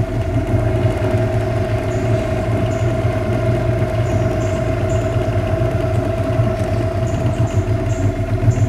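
Small tour boat's motor running steadily: a low, even hum with a constant higher tone above it.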